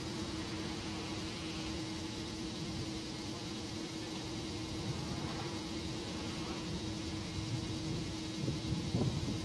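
A freighter's engine running with a steady hum on one low note. Wind starts gusting on the microphone near the end.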